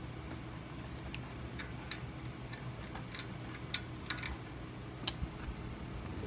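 Scattered light clicks and ticks of hand tools being handled, irregularly spaced with one sharper click just before the middle, over a steady low hum.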